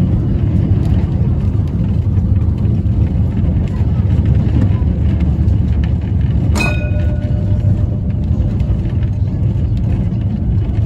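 W-class tram running along the track: a steady low rumble from the car and its wheels on the rails. About two-thirds of the way through comes one sharp metallic clang that rings briefly.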